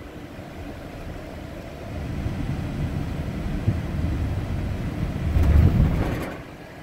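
Car engine and road noise heard from inside the cabin while driving, a low rumble that builds about two seconds in, is loudest shortly before the end, then drops away.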